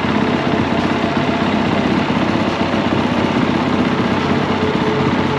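Honda CRF450R's single-cylinder four-stroke engine idling steadily, warming up from cold.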